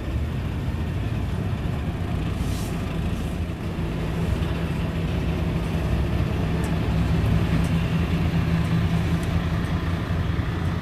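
Heavy truck's diesel engine running steadily, heard from inside the cab as a low drone that grows louder about four seconds in.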